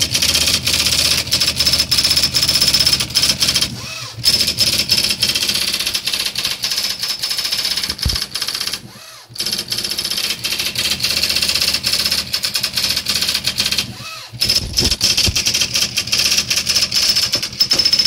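IBM Wheelwriter 1000 daisy-wheel typewriter printing automatically from memory: a fast, continuous clatter of printwheel hammer strikes over a steady high motor whine, with a brief pause about every five seconds as each line ends.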